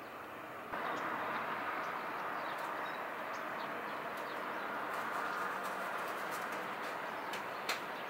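Outdoor background: a steady noise, louder from about a second in, with short high bird chirps scattered over it and a sharp click near the end.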